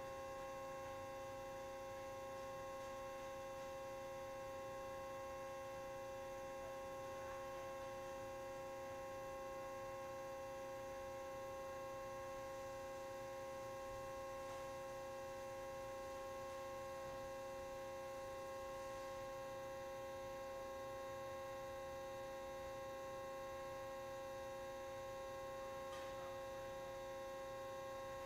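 A steady hum made of several even tones, unchanging throughout.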